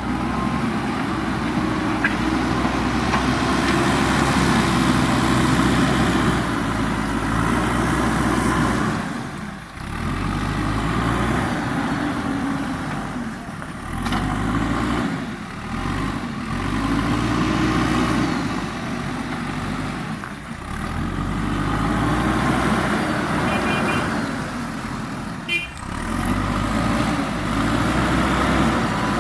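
Heavy-machinery diesel engine working under load, its revs rising and falling in repeated surges a few seconds apart. A brief sharp knock comes near the end.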